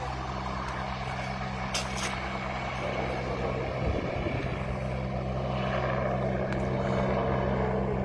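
A steady low engine hum on an airport apron, with a helicopter flying off into the distance. The noise swells slightly toward the end.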